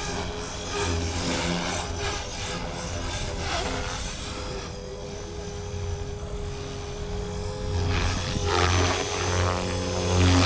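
Blade Fusion 360 electric RC helicopter flying aerobatics: a steady motor and rotor whine, with the rotor blade noise swelling about a second in and again near the end as it loads up in the manoeuvres.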